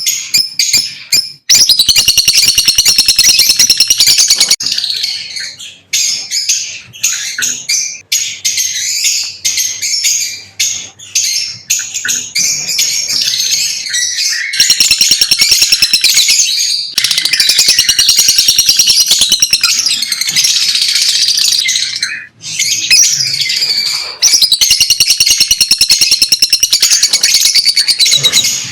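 Lovebirds chirping and chattering, a dense run of rapid high-pitched chirps broken by a few short pauses.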